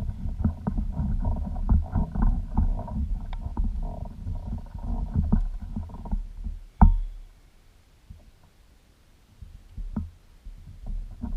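Low rumbling with many short knocks and clatters for about six seconds. Then a single heavy thump, followed by quieter stretches broken by a few fainter knocks.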